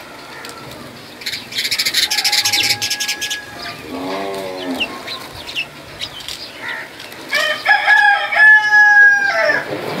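Rooster crowing: one long call of about two seconds near the end, after a fainter, shorter crow and a lower clucking call in the first half. A burst of rapid high chatter from small birds comes about two seconds in.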